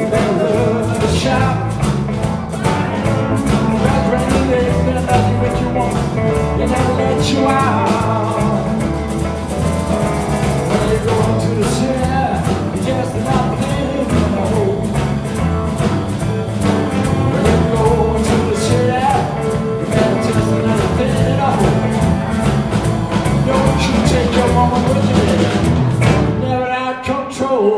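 Live blues band playing an instrumental break: harmonica solo over electric guitars, bass and drum kit. The music stops abruptly just before the end.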